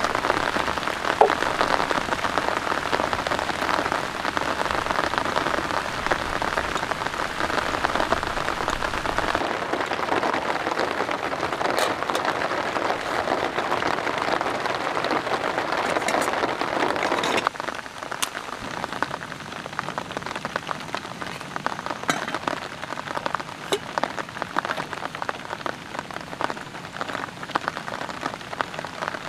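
Steady rain falling. About two-thirds of the way through it turns quieter, with single drops striking close by.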